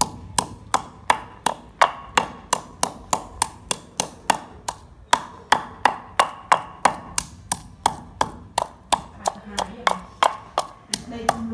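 Wooden pestle pounding garlic and red chilies in a wooden mortar: a steady run of sharp knocks, about three a second.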